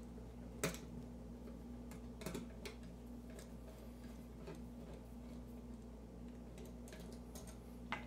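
Faint, scattered small metal clicks and taps of a screwdriver turning the terminal screws of a three-way light switch as the traveler wires are tightened and the switch is handled. A louder click comes about half a second in, and a few more come near the end.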